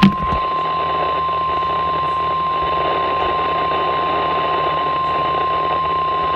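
NOAA Weather Radio 1050 Hz warning alarm tone: one steady high tone held over radio hiss, announcing a tornado warning. It opens with a sharp click and cuts off near the end.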